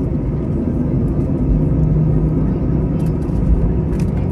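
Steady low rumble and hum inside the cabin of an Airbus A321 taxiing, its CFM56 engines at low thrust, with a few faint clicks near the end.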